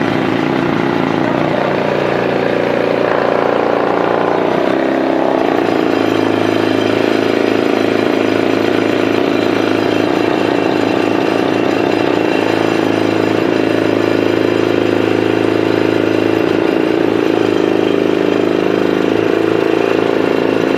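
An engine running steadily at one speed, with water gushing from a pipe and splashing onto rock.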